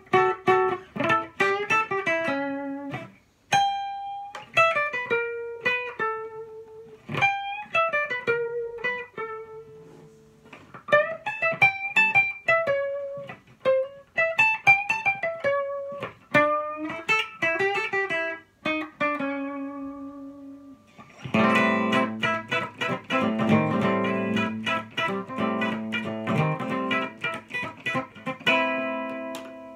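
1962 Framus New Sound semi-hollow electric guitar played through an amplifier in an improvised blues-jazz jam. It plays single-note lines with slides and short pauses, then switches to fuller strummed chords about two-thirds of the way in.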